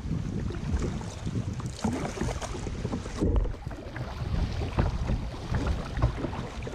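Paddle strokes splashing and water sloshing around a paddled canoe or kayak on a river, coming irregularly, with wind rumbling on the microphone.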